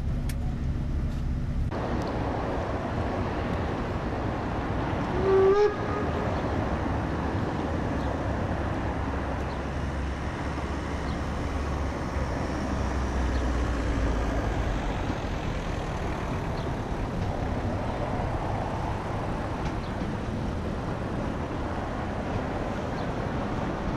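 A Harz narrow-gauge steam locomotive's whistle gives one short, loud blast about five seconds in, over the steady rumble of the train.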